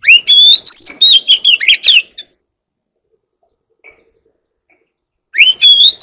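Oriental magpie-robin singing: a loud phrase of rising and falling whistles and warbles for about two seconds, a pause with one faint note, then a second phrase starting near the end.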